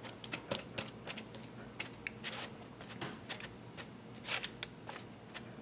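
Spatula pushing and folding soft melted plastic on parchment paper in a metal baking tray: faint, irregular scrapes, clicks and crinkles of the paper.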